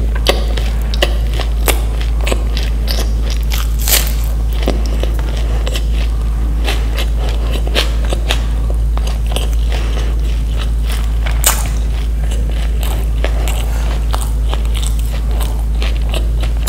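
Close-miked eating: irregular crunchy bites and chewing with many small sharp clicks, over a steady low hum.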